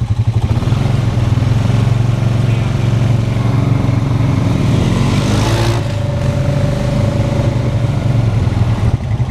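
ATV engine running up close, revving as the quad pulls away. The pitch climbs about four to five seconds in, there is a brief rush of noise, and the engine then holds a steady note.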